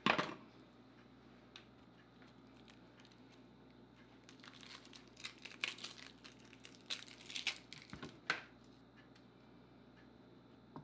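Dry, papery onion skin crackling and tearing as it is peeled by hand from a halved onion, in a run of crinkles from a few seconds in until a little past the middle. A single sharp knock on the cutting board right at the start.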